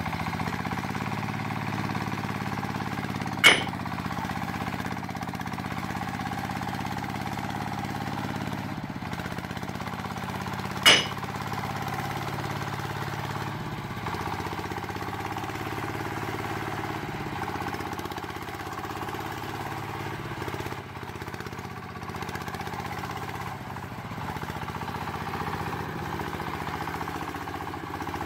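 Tractor engine running steadily at idle, a low even engine note that shifts pitch slightly now and then. Two sharp clicks stand out, about three and a half seconds in and again about eleven seconds in.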